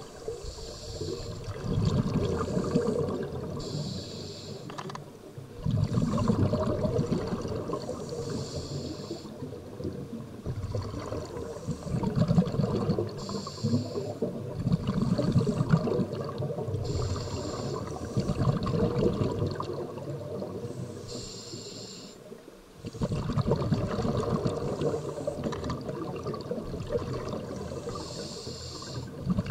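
Scuba diver breathing through a regulator underwater: a short hiss on each inhalation, then a longer, louder bubbling rush on each exhalation, repeating every few seconds.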